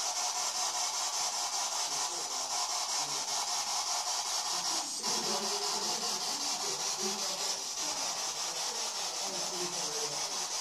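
Steady hiss of static that pulses evenly about four times a second, with faint broken fragments of sound beneath it.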